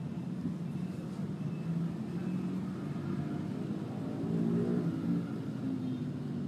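Steady low background rumble, a little louder for a moment about four seconds in.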